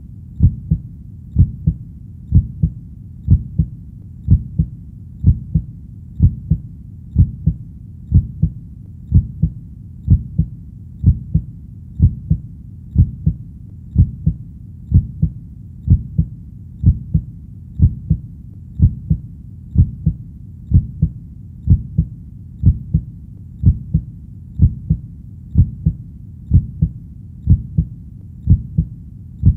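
Heartbeat beating slowly and steadily, each beat a double thump (lub-dub), about one beat a second, over a low steady rumble.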